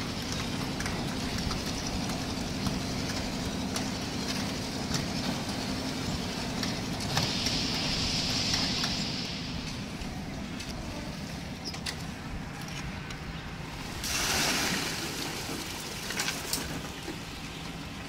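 Concrete mixer machine's engine running steadily on the site. A louder hissing rush comes about seven seconds in and lasts a couple of seconds, and a short, louder burst of noise follows about fourteen seconds in.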